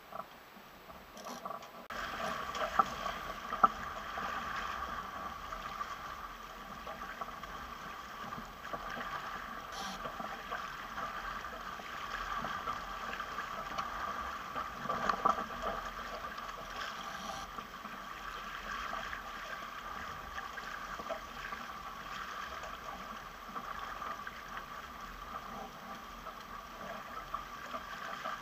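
Water rushing and splashing along a multihull sailboat's hull as it sails under way. It starts about two seconds in and then runs steadily, with a few louder splashes.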